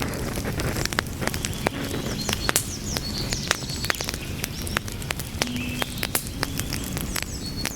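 Wood fire crackling, with frequent sharp pops and snaps over a steady low rumble of the flames.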